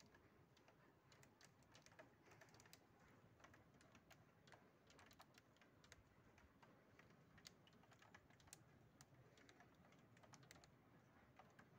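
Faint, irregular tapping of raindrops striking the outer window ledge, several sharp ticks a second at random intervals.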